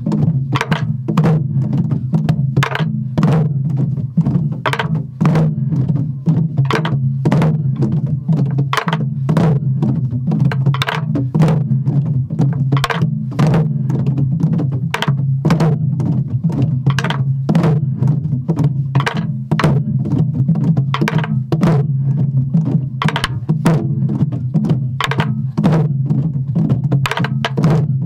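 A group of Korean buk barrel drums played together in the jajinmori rhythm: sharp stick strokes about twice a second over a steady, booming low drum sound.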